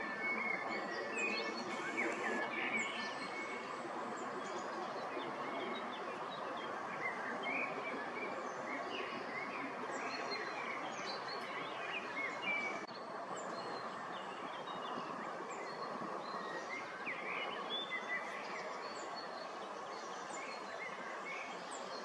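Birds chirping with many short, scattered calls over a steady wash of background noise, which drops a little about halfway through.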